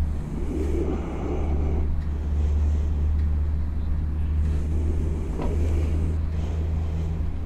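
A steady low engine hum, with rattling and a sharp click about five seconds in as the motorcycle's front end is strapped down to the loading cart.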